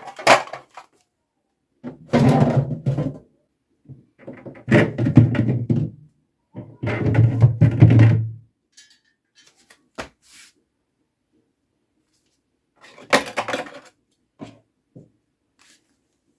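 Fridge shelves and drawers being pulled out and handled: several bursts of sliding and scraping, each a second or two long, with knocks and thunks between and one shorter burst near the end.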